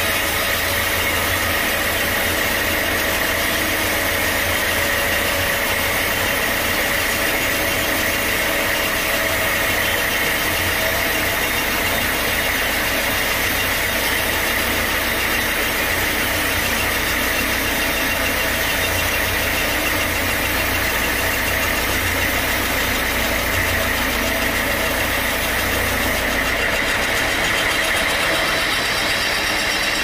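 Sawmill machinery running steadily: an engine's drone with a steady high whine over it.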